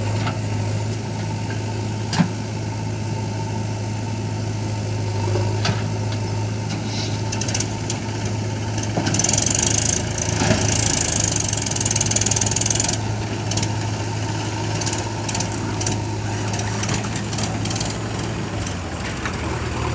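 Diesel engine of heavy machinery running steadily at idle, with a sharp click about two seconds in and a high hiss lasting about four seconds midway.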